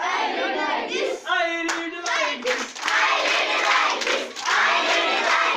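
A group of young schoolgirls singing or chanting together while clapping their hands in time.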